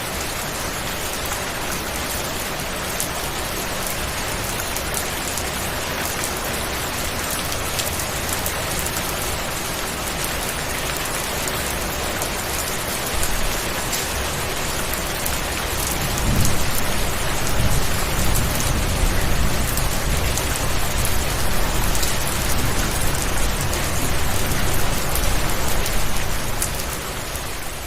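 Steady, even rain noise. About halfway in, a low rumble joins and makes it louder, and the sound begins to fade just before the end.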